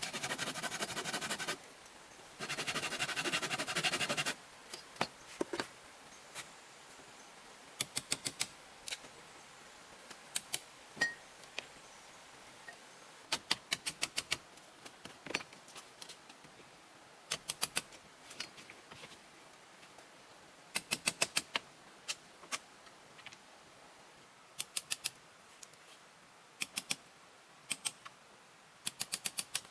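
Two short stretches of scraping or rasping noise at the start, then light, sharp taps in quick clusters of three to six, repeated every second or two.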